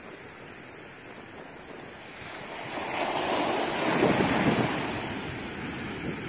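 Ocean surf at the shore: a wave breaks and washes in, a noisy rush that swells from about halfway through and fades near the end, over a faint steady hiss.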